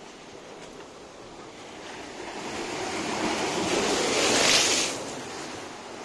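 Sea waves surging and breaking among shoreline rocks. One wave swells from about two seconds in, is loudest at about four and a half seconds, then falls away.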